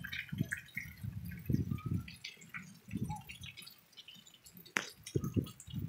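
Rain dripping and pattering in irregular drops, with low bumps on the microphone and one sharp tap near the end.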